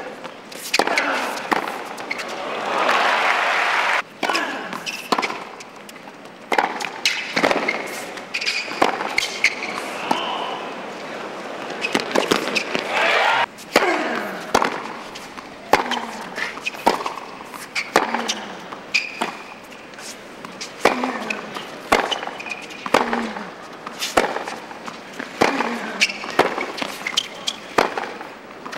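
Tennis rallies on a hard court: racquets striking the ball and the ball bouncing, sharp cracks about once a second, with short bursts of crowd noise between points.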